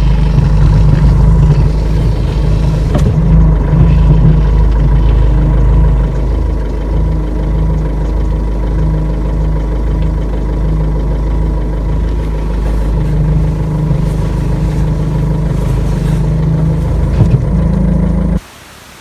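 Ford Figo engine idling while the steering wheel is turned, with the hydraulic power steering pump giving a rubbing sound, like air being sucked through a straw: the fluid reservoir is empty and the pump is drawing air, which risks ruining the pump. The sound cuts off abruptly near the end.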